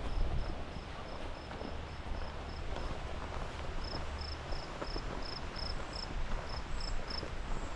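A high chirp repeated evenly at one pitch, about three times a second, from a small animal such as an insect or bird; it pauses briefly about three seconds in and stops near the end. A low rumble runs underneath.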